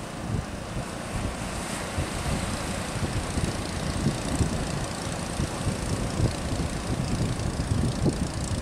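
Outboard motor of a small fishing boat droning steadily under wind and surf noise.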